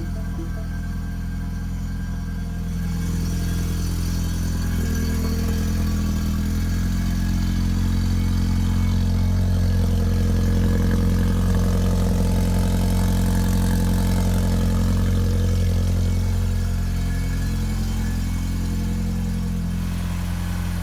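Mini Cooper's turbocharged 1.6-litre four-cylinder engine idling just after a cold start. It gets louder a few seconds in and eases back down near the end.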